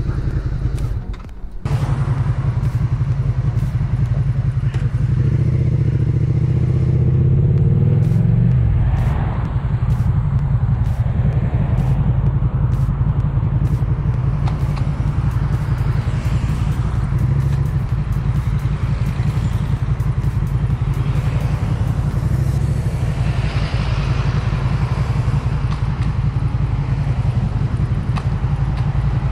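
Motorcycle engine running and pulling away: the revs climb for a few seconds and fall back about eight seconds in, then the bike runs on steadily with wind and road noise.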